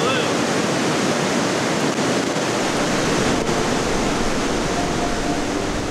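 Steady rushing of the St. Mary Falls waterfall pouring into a deep pool.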